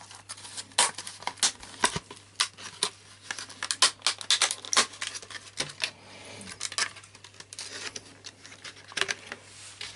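Plastic packaging of new laptop RAM modules being opened and handled: a quick irregular run of sharp crackles, clicks and crinkles, with a short rustle about two-thirds of the way through.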